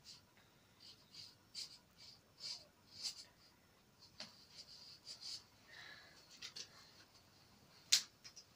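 Washable felt-tip marker scratching in short strokes across the fabric of a plush teddy bear, with a sharp click near the end.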